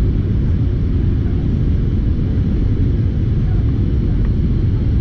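Steady low rumble of engine and airflow noise inside the cabin of a Boeing 737-800 in flight, with its CFM56 turbofans running.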